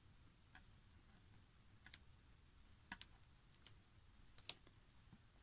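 A handful of faint, sharp clicks from a crochet hook and fingernails working yarn, spaced irregularly over near silence.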